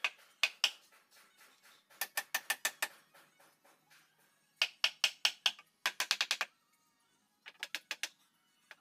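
Hand sanding of a meranti wood frame rail with sandpaper: bursts of quick, scratchy back-and-forth strokes, about seven or eight a second, with short pauses between bursts.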